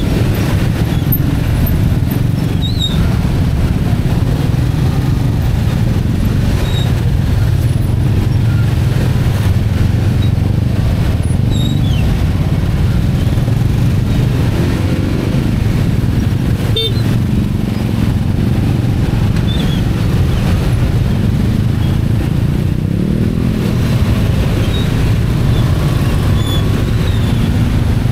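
Motorcycle and car engines running in slow, jammed traffic: a steady low engine drone, with a couple of brief rises in pitch as engines are revved.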